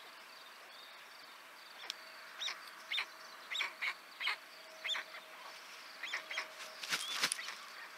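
A run of about ten short, high bird calls, then near the end a few loud, sharp wing flaps as a white stork spreads and beats its wings on the nest right beside the microphone.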